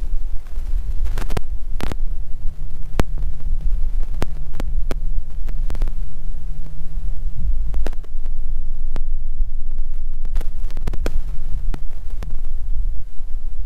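Electric bow-mounted trolling motor humming steadily at a low pitch, coming on a couple of seconds in and stopping near the end, over a heavy low rumble of wind on the microphone. Scattered sharp clicks and taps are heard throughout.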